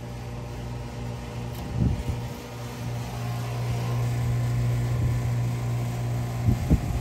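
Neighbouring rooftop air-conditioning condenser running: a steady low mechanical hum. A few short knocks come about two seconds in and again near the end.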